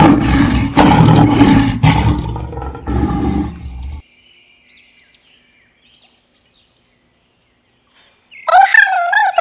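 Tiger roaring, a loud rough roar lasting about four seconds that cuts off abruptly. Faint bird chirps follow, and near the end a loud wavering pitched sound starts.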